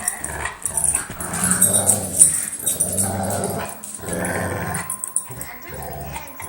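Dogs play-growling over a plastic ring toy in a tug game: a string of low growls one after another, with short breaks between them.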